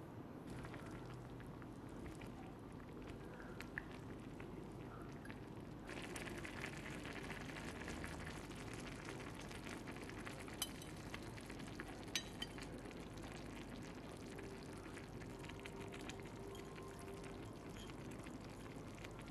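Soup bubbling at a simmer in a small saucepan, the bubbling growing denser and louder about six seconds in. A couple of light clinks of a spoon against the pot come near the middle.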